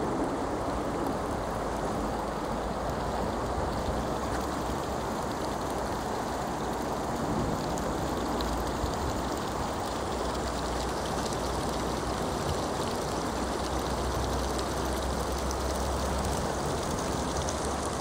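Steady rush of flowing river water, an even, unbroken noise with a constant low rumble underneath.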